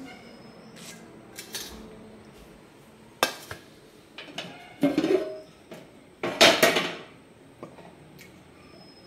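Stainless steel plate and pot knocking and clattering together. A sharp knock comes about three seconds in, clatters with a brief metallic ring follow around five seconds in, and the loudest comes around six and a half seconds in.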